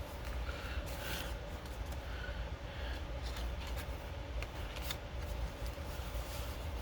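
Paper pages, tags and inserts of a handmade junk journal rustling and flapping as they are turned and handled, with a few light ticks, over a steady low hum.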